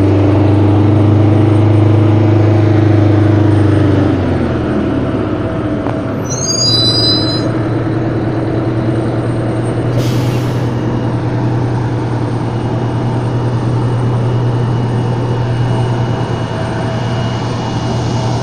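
Heavy vehicle engine running with a steady hum; its pitch drops about four seconds in as it slows, then it settles into a steady drone. There is a short high squeal about six to seven seconds in and a brief burst of hiss about ten seconds in.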